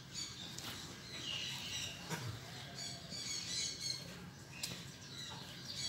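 Small birds chirping and calling, many short high chirps over a steady low hum, with a couple of light knocks about two seconds in and near the end.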